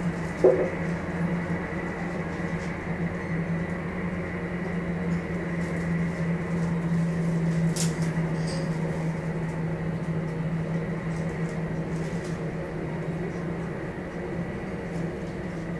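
Boeing 747-400 jet engines running at taxi power, a steady drone with a low hum and a thin high whine. A brief knock comes about half a second in, and a sharp click near the middle.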